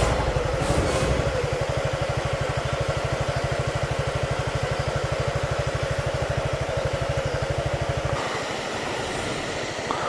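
Suzuki Gixxer 150's single-cylinder engine idling with an even, rapid putter, cut off suddenly about eight seconds in.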